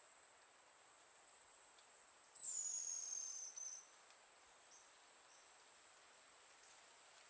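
White-whiskered puffbird giving one thin, very high whistle that slides down in pitch over about a second and a half, a couple of seconds in, with a short extra note at its end. A steady high insect trill runs underneath.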